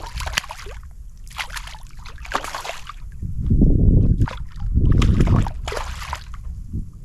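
Water splashing and sloshing as a hooked trout thrashes at the surface while being played in, with two loud low rumbles about three and five seconds in.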